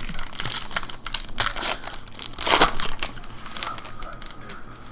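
A Topps WWE Undisputed trading card pack wrapper being torn open and crinkled, in a run of irregular rustles with the loudest tear about halfway through.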